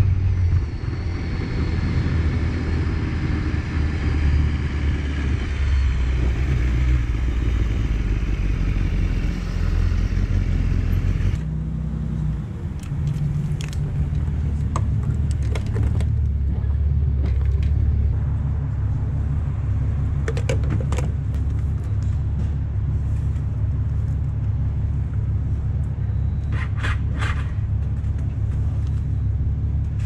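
BMW HP4 motorcycle's inline-four engine running under way, a steady low rumble whose pitch steps up and down several times. A rushing hiss lies over it for about the first eleven seconds and then stops abruptly, and a few short clicks follow later.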